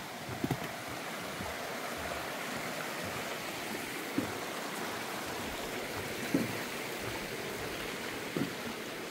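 A stream running steadily, a constant rush of water, with a few soft thumps at intervals.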